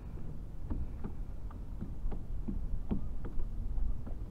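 Light, irregular knocks and lapping of water against a kayak hull, over a low rumble.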